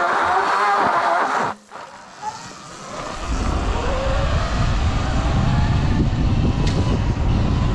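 Sur-Ron electric dirt bike's motor whining and rising in pitch as it speeds up. Heavy wind rumble on the microphone sets in about three seconds in, as the bike rides along.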